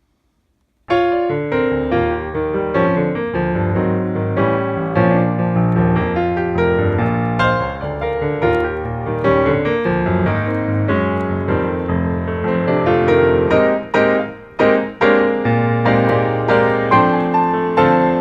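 Piano music, cutting in suddenly about a second in after near silence, with a run of quickly struck notes and chords over a bass line.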